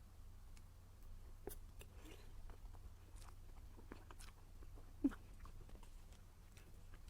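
Faint, close-up eating sounds of a baked mousse: soft chewing and small wet mouth clicks, with one sharp click about five seconds in.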